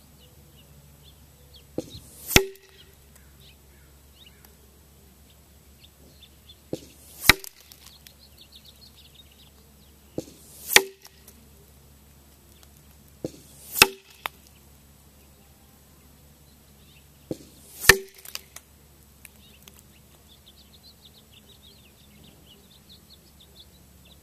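Five paintball shots, a few seconds apart. Each one is a faint distant pop from the marker, then about half a second later the First Strike round hums in and smacks into the target. Birds chirp faintly in the background.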